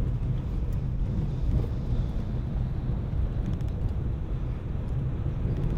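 Car driving along, a steady low rumble of engine and tyres on the road.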